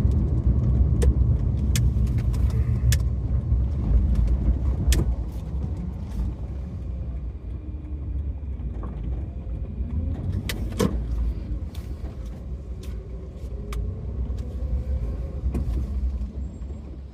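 Suzuki Vitara engine and road noise heard from inside the cabin as the car slows. It settles to a quieter low running hum about six seconds in, with occasional sharp clicks.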